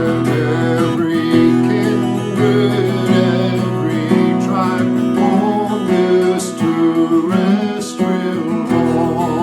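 Avalon A101ce acoustic guitar playing a hymn tune in a Celtic-rock style, with strummed chords under a picked melody line.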